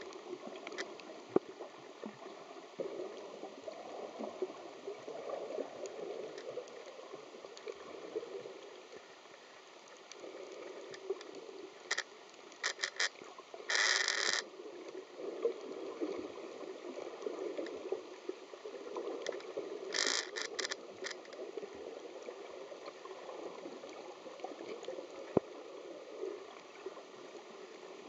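Muffled underwater water noise picked up by a submerged camera, with scattered sharp clicks. Short bursts of loud crackle come a little after halfway and again around two-thirds of the way in.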